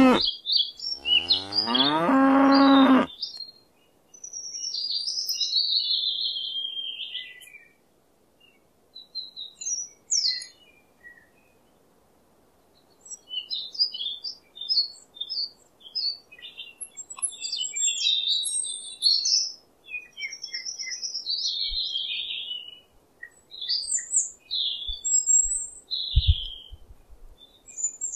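A cow moos, a long call falling in pitch that ends about three seconds in; then small birds chirp and sing in scattered bursts, with a few low thumps near the end.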